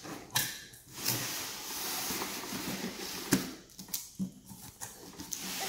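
Cardboard box and packaging scraping and rustling as a large plastic toy is slid out of it, with a few sharp knocks along the way.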